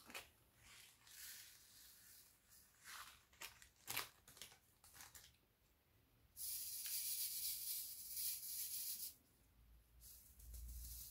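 Small plastic clicks and crinkles of a zip bag being opened and emptied. Then, about six seconds in, resin diamond-painting drills rattle with a loud, even hiss for about three seconds as they are shaken in a sorting tray and settle into its grooves. The rattling starts again near the end.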